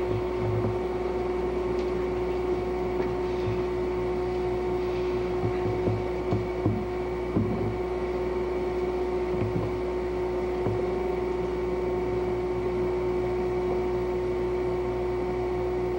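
Steady electrical hum and hiss from an old video recording, with a few faint low thumps scattered through.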